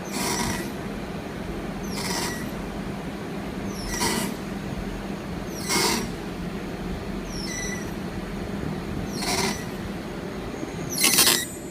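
CNC milling machine cutting the rib grooves into a steel rolling-mill roll for ribbed rebar: a steady machine hum with a short burst of cutting noise about every two seconds.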